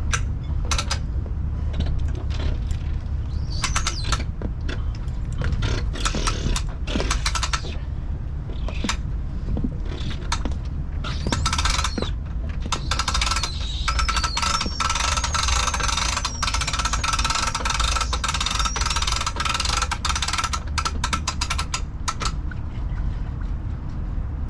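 Boat trailer winch ratcheting as it is cranked and released: a run of sharp metallic clicks, denser and more continuous in the middle stretch. A steady low rumble runs underneath.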